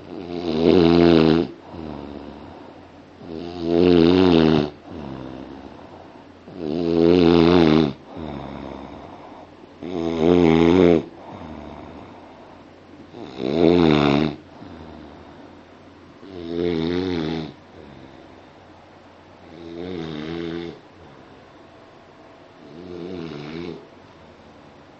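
A person snoring in a steady rhythm: a loud, rattling snore on each breath about every three seconds, eight in all, with softer breathing between. The last few snores are fainter.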